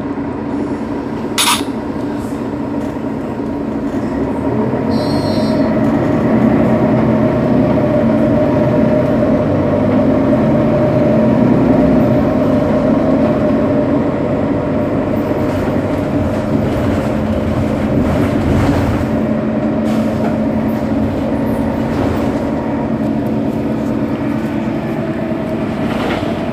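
Mercedes-Benz Citaro's OM 457 hLA straight-six diesel idling while the bus stands still, with a steady whine over the engine that swells a few seconds in and then holds.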